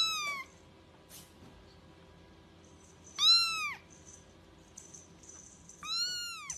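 Young grey kitten mewing three times: short, high-pitched mews about three seconds apart, each rising and then falling in pitch.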